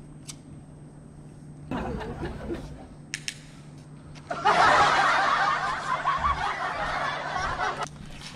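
A burst of laughter edited in as a sound effect, starting about four and a half seconds in and cutting off suddenly near the end, over a steady low hum. A short voice comes before it, about two seconds in.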